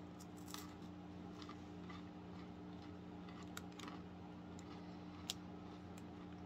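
Faint crunching of a crisp chocolate-drizzled pastry crisp being chewed: scattered sharp little crackles, the sharpest about five seconds in. A steady low hum runs underneath.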